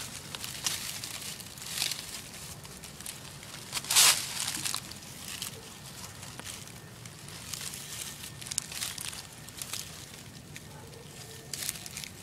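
Dry fallen leaves rustling and crunching in irregular bursts as feet move through the leaf litter, loudest about four seconds in.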